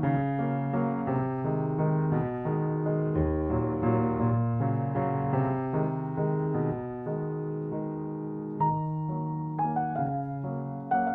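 Piano music: a melody over held chords, with notes changing about once a second.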